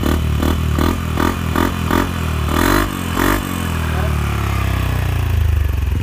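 Yamaha NMAX scooter's single-cylinder engine running through a JVT power pipe aftermarket exhaust, with rhythmic pulses about three times a second. About two and a half seconds in it revs up, then falls back to a steady idle.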